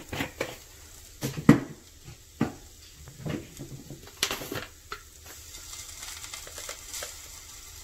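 Several sharp clinks and knocks of kitchen utensils, the loudest about a second and a half in, then a faint steady sizzle from onion, tomato and ginger heating in a clay pot on a gas flame.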